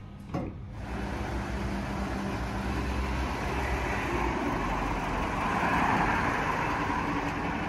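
City street traffic: a garbage truck's engine running and a car driving by, a steady rushing noise with a low rumble that swells to its loudest near the end, after a short sharp click about half a second in.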